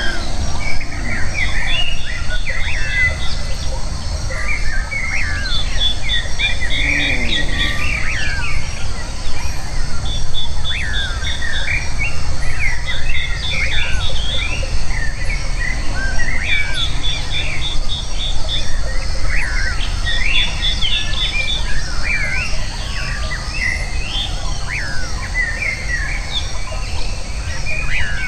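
Many birds chirping and calling with short sweeping notes, and a fast ticking trill that comes back every few seconds, over a steady low rumble.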